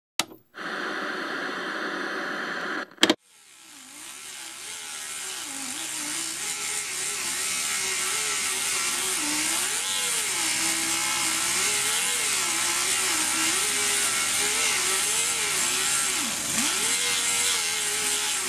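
A short burst of hiss and a sharp click in the first three seconds. Then a pneumatic die grinder fades in, grinding metal over a hiss of air, its whine rising and dipping again and again as it is pressed into the work.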